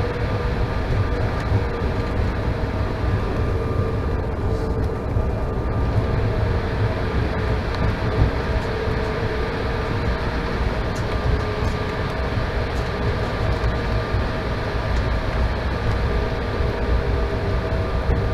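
Embraer E175 regional jet cabin noise: a steady low rumble with the engines' whine held on a few steady tones.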